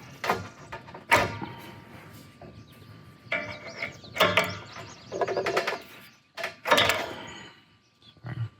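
An adjustable wrench working an old propane hose fitting loose on a tank valve: about half a dozen separate sharp metallic knocks and clinks, with short squeaks between them.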